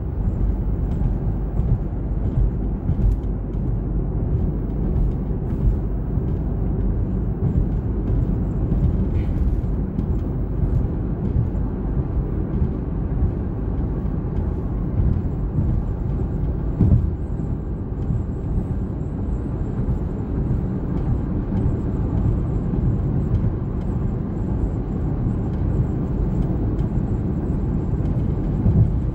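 Road noise inside a moving car: a steady low rumble of tyres and engine at cruising speed, heard from the cabin.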